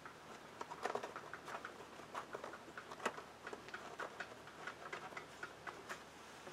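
Laces of a leather work boot being pulled loose by hand: irregular scratchy clicks and ticks as the lace slides through the eyelets and the leather flexes.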